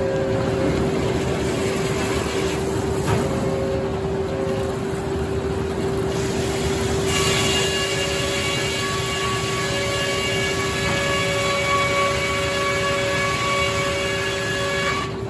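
Circular sawmill running: a steady machine drone with a constant hum. A set of high steady tones comes in about seven seconds in and holds.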